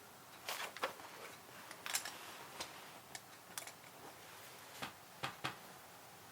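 Keyboard keys being typed on in short, irregular bursts: scattered clicks and taps, a dozen or so strokes, that stop a little before the end.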